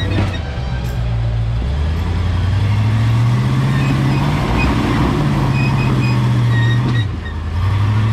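Off-road truck engine working on the trail, its pitch rising and falling with the throttle and dropping off briefly about seven seconds in before picking up again.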